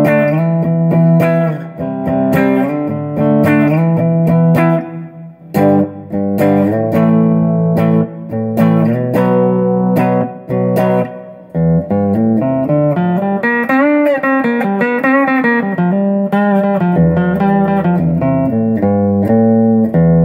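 Electric guitar played through a Boss Katana 50 combo amp's clean channel on the bridge pickup, with gain low, EQ flat and reverb on: ringing chords and picked notes, with a little bass response from its 12-inch speaker. Past the middle a run of notes climbs and falls again.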